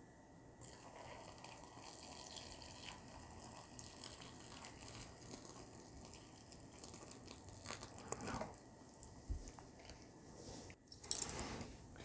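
Freshly boiled water poured in a thin, steady stream from a portable electric kettle into a paper cup of instant noodles: a faint, even splashing and trickling. It is followed by a brief, louder clatter near the end.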